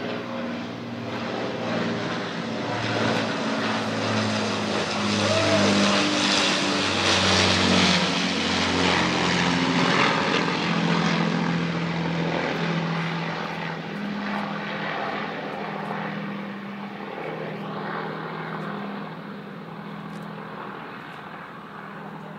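Avro Lancaster bomber flying over with its four Rolls-Royce Merlin V12 piston engines running, a deep beating engine drone. It grows to its loudest about seven to ten seconds in, then fades as the aircraft draws away.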